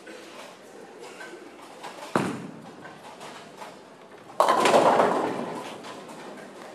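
Ten-pin bowling ball landing on the lane with a sharp thud about two seconds in, rolling, then crashing into the pins a little over two seconds later; the pins clatter loudly and die away.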